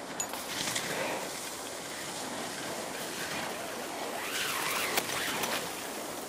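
Wind rushing over the camera microphone high on a snow slope: a steady, even noisy rush.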